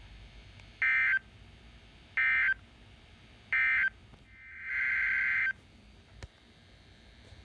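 Emergency Alert System end-of-message code: three short bursts of two-tone digital data about a second and a half apart, marking the end of the warning broadcast. About four and a half seconds in comes a longer data-like burst in the same pitch range, lasting just over a second.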